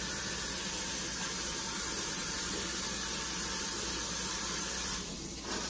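Kitchen faucet running into the sink as hands are rinsed under it. The steady rush stops about five seconds in.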